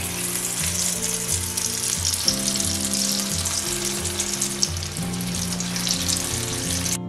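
Marinated beef pieces frying in hot oil, a dense sizzling crackle that cuts off suddenly near the end. Background music plays under it.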